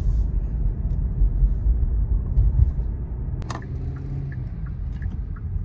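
Car cabin rumble from driving, a loud steady low road and engine noise. A sharp click comes about three and a half seconds in, followed by a few light ticks.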